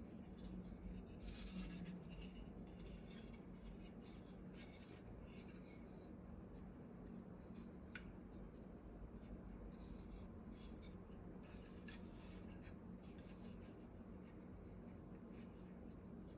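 Faint rubbing and soft clicks of hands handling a hand-carved wild cherry wood sculpture, with one sharper click about eight seconds in, over a steady low hum.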